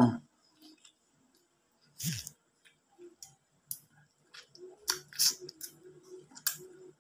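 Wet smacking and slurping of a mouth eating soft ripe mango flesh off the slice: a run of short irregular smacks, coming thicker in the second half.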